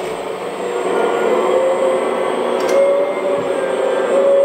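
Hydraulic pump of a Huina 1/14 Kabolite K970 RC excavator running steadily as the boom lifts. Its whine rises a little in pitch as the arm takes the load, with a small click partway through.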